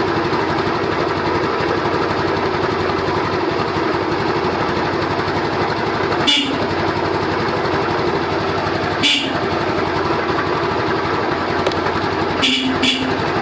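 Small motorcycle engine idling steadily, with short sharp sounds about six and nine seconds in and twice in quick succession near the end.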